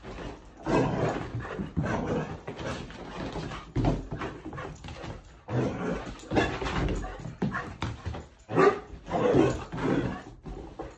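Six-month-old Vizsla puppy giving excited whines and barks in many short, irregular bursts.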